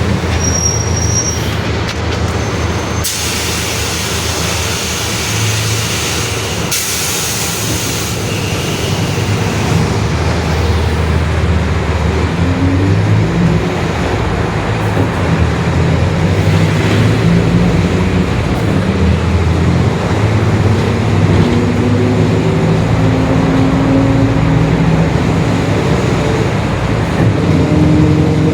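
Mercedes-Benz OF-1721 Bluetec 5 city bus running, heard from on board, with a steady low engine drone. A hiss of compressed air starts suddenly about three seconds in and stops about eight seconds in, and from the middle on a whining tone climbs in pitch in steps: the differential growl ('diferencial roncando').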